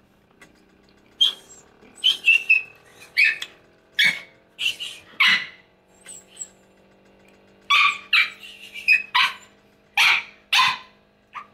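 A dog barking repeatedly: about fifteen short, sharp, high barks in irregular runs, beginning about a second in.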